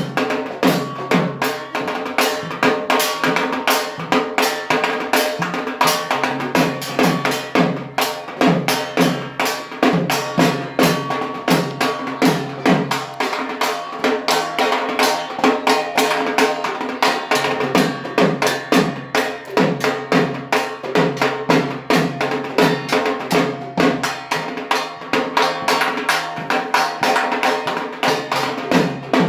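Dhak, the large Bengali barrel drum beaten with sticks, played in a fast, steady rhythm of repeated strokes, the deep strokes dropping slightly in pitch after each hit.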